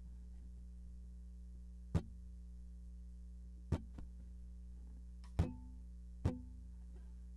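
Steady low hum with four sharp taps one to two seconds apart; the last two leave brief low notes ringing.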